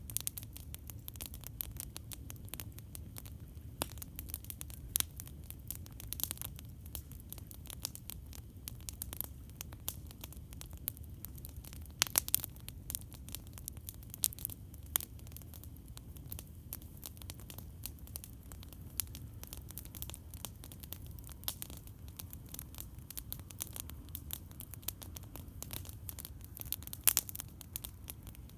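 Campfire crackling: irregular sharp pops and snaps from burning wood over a steady low rumble, with a cluster of louder pops about twelve seconds in and another near the end.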